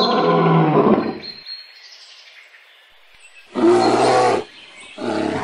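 A tiger roars loudly for about the first second and a half. Two shorter animal roars follow near the end.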